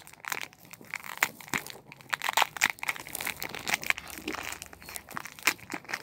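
Foil wrapper of a Pokémon XY Flashfire booster pack crinkling and crackling in the hands as it is torn open, a quick irregular run of crackles.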